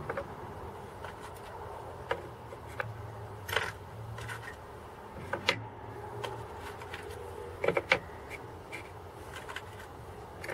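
Steel countersink drill bits being set one by one into the notched slots of an oak box: scattered light clicks and knocks of metal on wood, a few in quick pairs, over a steady low hum.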